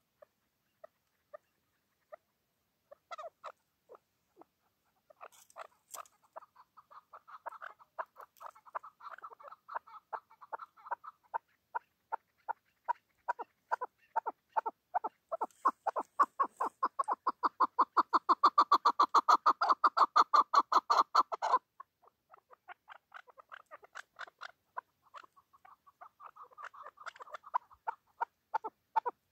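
Decoy chukar partridge calling: a few scattered single clucks build into a fast, steadily louder run of repeated 'chuck' notes that stops abruptly about two-thirds of the way through, then starts building again near the end.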